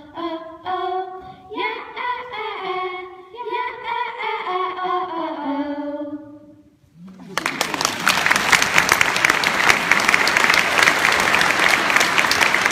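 A small group of girls sings the song's closing phrase a cappella, the voices ending about six seconds in. About seven seconds in, applause starts and carries on steadily.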